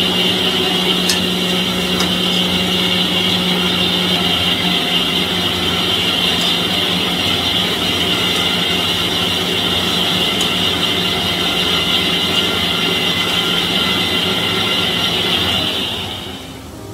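Pressure cooker cooking rice, whistling as steam vents past its weight: a loud, steady high hiss with a low hum under it, fading away near the end.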